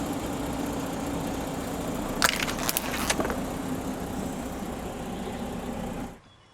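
A car's engine running steadily, with a quick cluster of sharp cracks and crunches a little over two seconds in as a tyre rolls over and crushes an object. The engine sound cuts off suddenly near the end.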